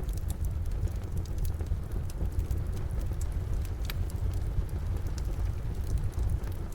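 Wood fire crackling in a fireplace: irregular small snaps and pops, one louder pop about four seconds in, over a steady low rumble.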